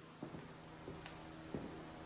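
Quiet workshop room tone: a faint steady hum with a few soft, short knocks.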